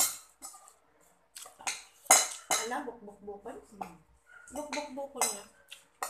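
Dishes and a metal spoon clinking against a bowl while someone eats, a handful of sharp clinks with the loudest about two seconds in.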